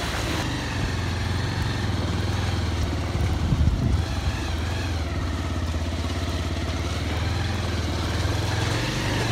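Motorcycle engine running steadily at low speed while being ridden over a muddy, rutted dirt road, with a short patch of louder bumps about three and a half seconds in.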